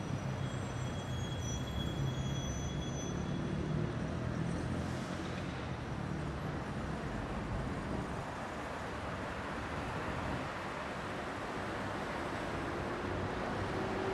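Steady road traffic noise, a continuous low rumble of passing vehicles with no distinct events.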